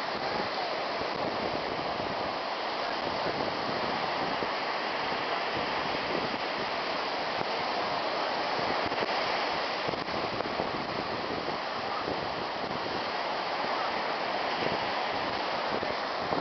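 Ocean surf breaking and washing up the beach, a steady rushing hiss.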